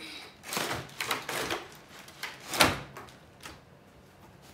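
Cardboard paint-set box being slid open and its plastic tray of paint tubes handled: scraping and rustling for about a second, then a sharp knock about two and a half seconds in as the tray is set down on a glass-topped table, and a lighter knock a second later.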